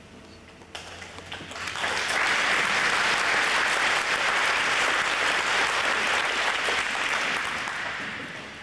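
Audience applauding: scattered claps about a second in swell into steady applause, then die away near the end.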